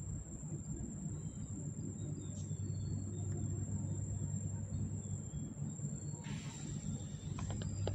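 A steady low motor rumble under a constant high, thin insect drone. About six seconds in, a rush of hiss rises, followed by a run of sharp clicks near the end.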